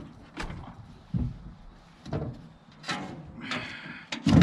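Knocks and clatter of fishing gear being handled on a boat deck while a fish is landed, with a short rattle about three and a half seconds in and a heavy thump near the end.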